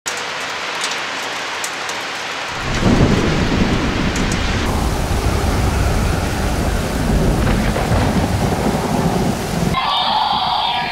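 Heavy rain hissing, joined about two and a half seconds in by a long, low rumble of thunder. The storm sound cuts off abruptly near the end.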